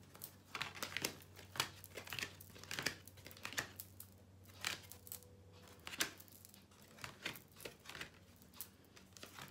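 A deck of picture cards being shuffled and handled by hand: a string of soft, irregular rustles and flicks.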